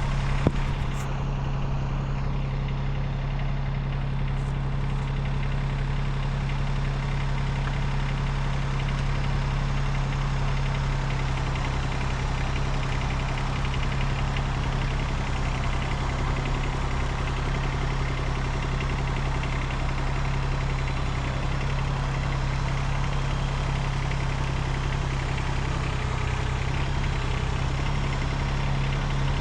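Small tractor engine running at a steady speed with a constant low hum.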